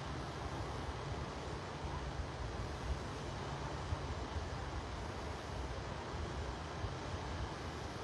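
Wind on the microphone: a low, uneven rumble over a steady hiss.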